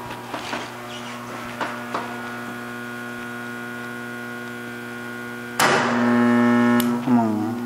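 Steady electrical hum of an AC arc-welding machine, with a few light clicks in the first two seconds. Near the end the buzz grows louder and harsher for about a second, then a short tone dips in pitch.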